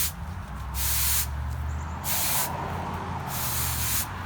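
Stiff broom sweeping dirt off a concrete sidewalk, a scratchy stroke roughly every second and a half.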